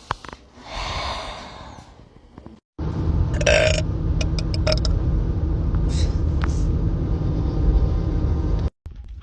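A person's long, loud burp lasting about six seconds, starting about three seconds in and cutting off abruptly.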